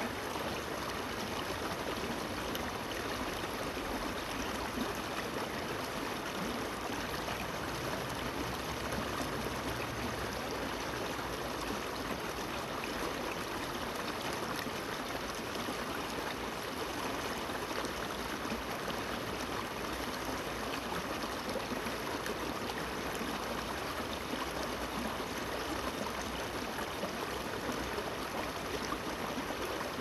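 Shallow river water babbling steadily over stones and through a small rocky cascade.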